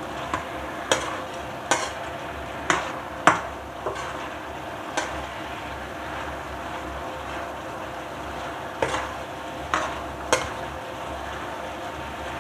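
Adobo sizzling in a wok on an induction cooker while a metal ladle stirs it, knocking and scraping against the pan. The sharp clicks of the ladle come every half-second or so in the first five seconds, stop for a few seconds, then return a few more times near the end.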